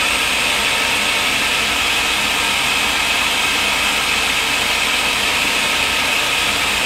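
Electric food processor running continuously, puréeing hummus to make it smoother: a steady motor whir that holds at one level throughout.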